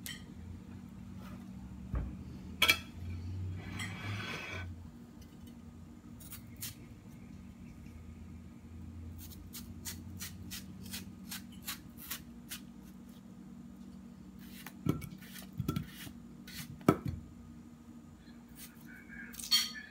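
Knife and spoon clicking, tapping and scraping on a wooden cutting surface and a plastic tub while a ripe melon is cut into wedges and cubes. A few heavier knocks come near the end, and a steady low hum runs underneath.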